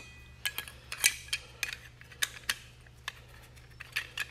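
A dozen or so irregular light metallic clinks and taps as metal pump stage parts (diffuser cups, impellers, shims) are handled and fitted together for a multistage booster pump.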